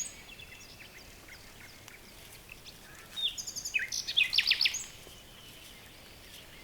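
A songbird singing one quick phrase of rapid high notes and short downward strokes about three seconds in, over faint steady outdoor background.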